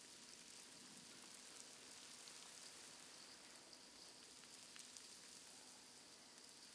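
Near silence: a faint, even hiss with scattered tiny crackles.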